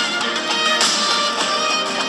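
Instrumental ringtone melody playing, with string-like plucked and bowed notes, thin and with no bass.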